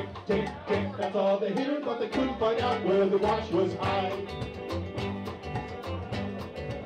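Live calypso band playing an instrumental passage: a guitar carries a moving melody over bass notes and a steady drum beat.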